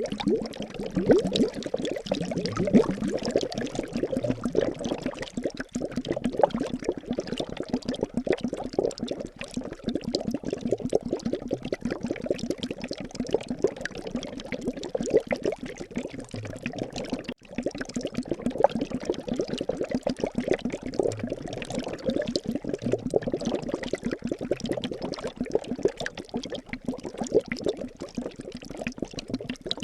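Liquid bubbling without a break: a dense run of small bubbles popping, with a light hiss.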